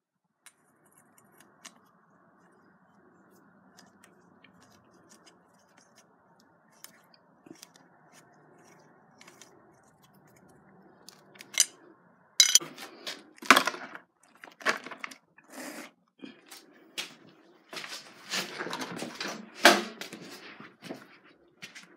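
Faint steady hum, then from about halfway a run of sharp clicks, clacks and rustling handling noises as a metal hand tool is worked on a nitro RC car's engine and parts are handled.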